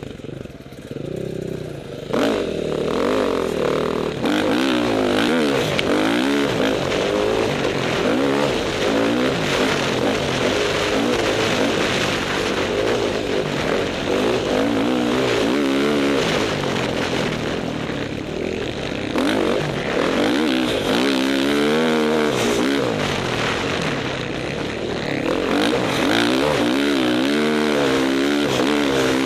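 Dirt bike's engine heard close up from a camera on the bike, revving up and down again and again as it rides through deep sand. It gets louder about two seconds in.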